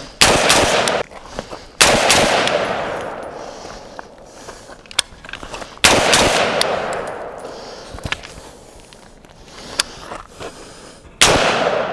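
Four rifle shots from a Daniel Defense DDM4 V7 AR-15-style rifle: two about a second and a half apart at the start, one about six seconds in and one near the end. Each shot is followed by a long echo that fades over several seconds.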